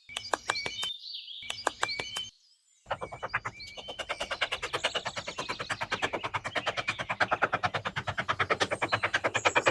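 A rapid, even train of sharp clicks, about eight a second, starting about three seconds in after a few scattered clicks and a short pause, with faint bird chirps behind.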